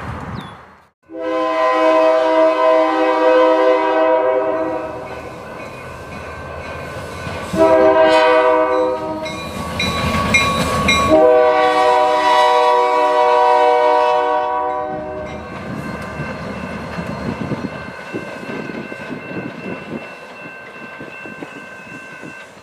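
Diesel locomotive air horn sounding a chord in three blasts, long, short, then long, as the train approaches a grade crossing. After the blasts it gives way to engine and rolling-wheel noise with a clickety-clack as the train passes.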